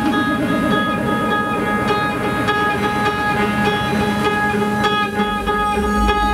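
Live improvised ambient noise music from electric guitar and electronics: layered sustained drone tones with a repeating pattern of guitar notes over a dense low bed. A deep low rumble swells up about five seconds in.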